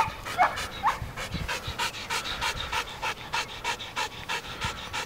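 Belgian Malinois panting hard and fast, about four to five breaths a second, with a couple of short high whines in the first second.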